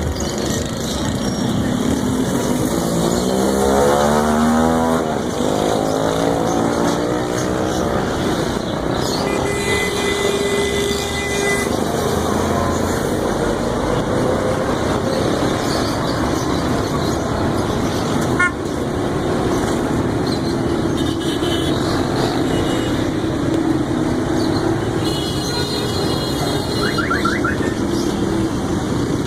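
Street traffic going past: motor vehicles and motorcycles running, with one engine revving up and dropping back about four seconds in, and short horn toots.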